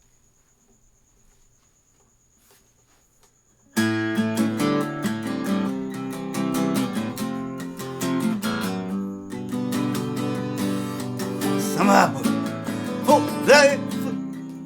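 Near silence for the first few seconds, then a song's intro starts abruptly: acoustic guitar strummed, with a few sliding notes near the end.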